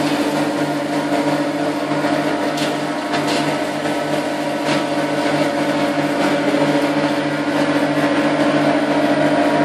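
Cashew nut powder grinding machine running steadily as it mills the nuts to powder, a constant motor hum with an even pulse under it, and a few brief ticks around three to five seconds in.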